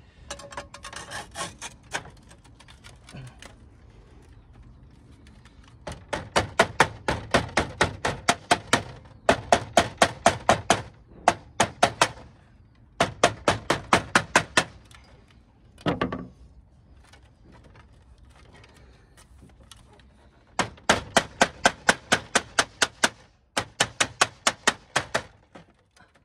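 Rubber mallet dressing code 4 lead flashing flat against the brickwork, with a plate held behind the lead: quick runs of sharp strikes, about five a second, in several bursts of two to three seconds with pauses between them.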